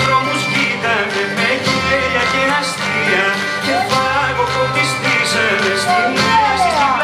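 Music: instruments playing a tune, with a few sliding notes.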